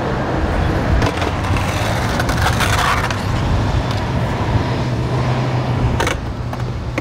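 Steady low rumble of road traffic, with a vehicle engine humming as it drives past on the road beside the skatepark. A few sharp knocks come through, one about a second in and one near the end.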